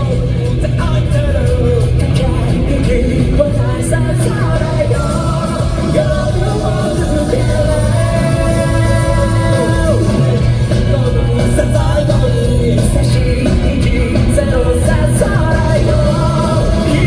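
Live rock band playing a fast song with a lead singer, electric guitars, bass and drums.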